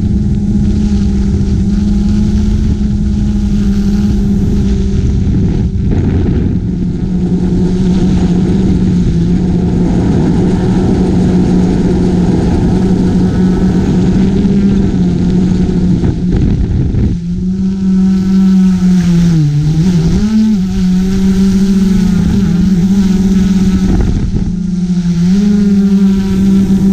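GoPro Karma quadcopter's motors and propellers humming at a steady pitch, heard from its onboard camera over wind rush. About two-thirds of the way through the wind noise drops and the hum dips and wavers in pitch.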